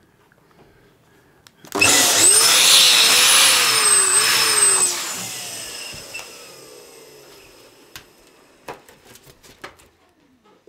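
Electric balloon pump running for about three seconds while inflating a latex balloon, its motor pitch wavering, then winding down with a falling whine. A few light clicks from handling the balloon follow near the end.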